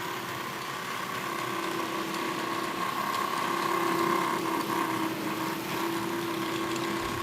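Bachmann Class 47 OO gauge model diesel locomotive running: a steady whine from its motor and drive gears with a rough, grinding edge, a noise the owner guesses comes from dry motor bearings. It swells a little around the middle.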